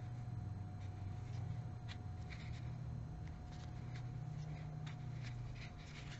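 Crochet hook and yarn being worked stitch by stitch: faint, irregular soft scratches and rustles over a steady low hum.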